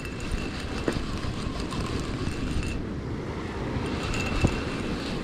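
Sea surf washing over rocks with wind rumbling on the microphone. A faint high whine comes and goes, and there is a single light knock about four and a half seconds in.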